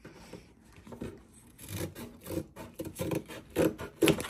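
Scissors cutting through a thin cardboard snack box, a run of short snips a few per second that get louder in the second half, the loudest near the end.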